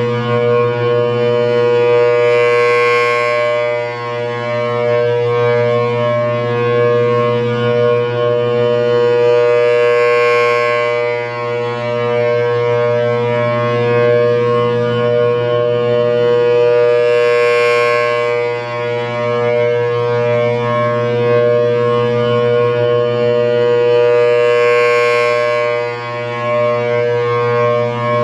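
Federal Signal Thunderbolt 1000AT rotating siren with a 4/5 port chopper sounding a steady alert tone, a held chord at constant pitch. It swells and fades four times, about once every seven and a half seconds, as the horn turns toward and away.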